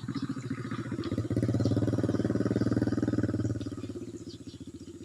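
A small engine, like a motorcycle's, running steadily with a fast even pulse; it grows louder about a second in and eases off after three and a half seconds. Faint high bird chirps sound over it.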